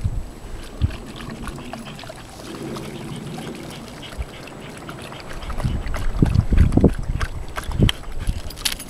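Giant Schnauzer lapping water from the cup of a dog water bottle: quick, wet laps in rapid succession, heavier and louder from about five seconds in.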